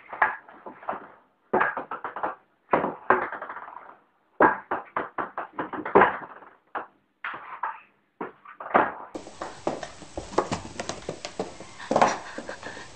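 Table-tennis ball clicking on a hard ping-pong table and paddle, in quick runs of bounces that die away, with short pauses between them. About nine seconds in the recording changes to a steady hiss with scattered knocks and taps.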